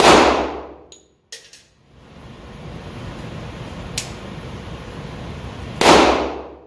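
Two shots from a Glock 40 long-slide 10mm pistol, about six seconds apart, each ringing out with a reverberant tail in an indoor range booth.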